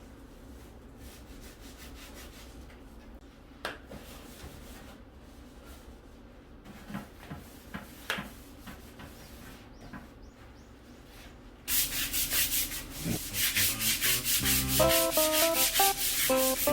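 Cleaning by scrubbing: quiet rubbing and handling with a few sharp knocks at first, then rapid, loud back-and-forth scrubbing strokes starting abruptly about two-thirds of the way in. Background music with a plucked melody enters near the end.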